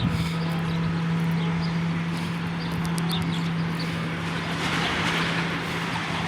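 A train passing, heard as a steady low drone that holds without change, with a few light clicks in the middle and a swell of rushing noise about five seconds in.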